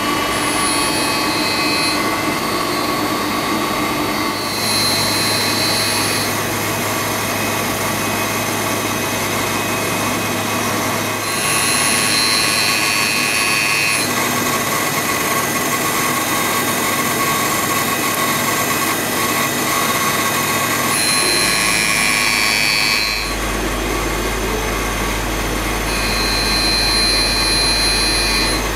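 Cincinnati tool and cutter grinder running steadily while a cutter is ground against its wheel. A higher-pitched grinding hiss comes and goes about five times as the hand-traversed table carries the cutter across the wheel.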